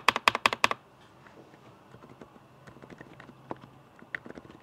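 Typing on a mechanical keyboard fitted with Akko silent switches, recorded with the mic close: a quick burst of sharp keystrokes in the first second, then softer, scattered keystrokes.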